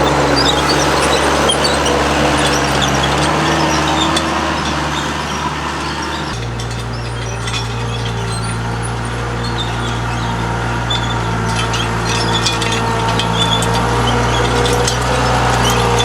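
Skid-steer loader's engine running steadily, its pitch shifting abruptly about six seconds in.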